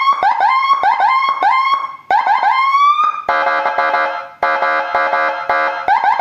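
Landun 60-watt electronic siren module played through a horn loudspeaker, loud. It first gives a run of quick rising chirps, about four a second, then about three seconds in switches to a steady, buzzy multi-pitch horn tone broken by short gaps. Quick chirps briefly return near the end.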